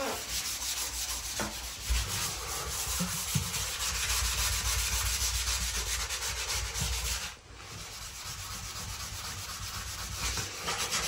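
Steady scratchy abrasive rubbing on the porcelain surface of a bathtub, as in sanding the tub during prep, easing off briefly about seven seconds in.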